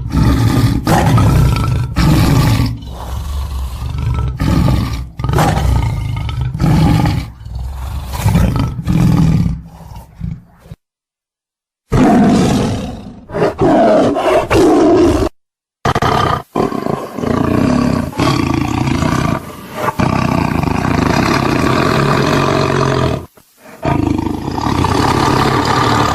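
Tiger roaring and growling: a string of separate loud roars spliced together with abrupt cuts, broken by two short stretches of dead silence about eleven and fifteen seconds in.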